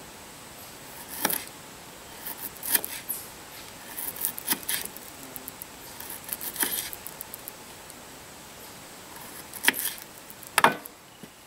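Kitchen knife slicing baby onions on a wooden cutting board: irregular sharp knocks of the blade through the onion onto the board, in small clusters with pauses between, the two loudest near the end.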